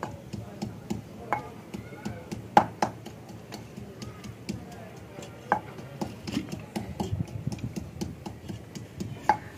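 Small knife cutting through a half muskmelon held in the hand, giving irregular sharp clicks and taps, a few of them louder.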